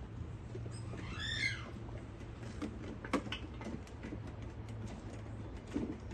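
Light clicks and taps as a gear motor and its drive belt are handled and fitted, with one short high chirp about a second in, over a steady low hum.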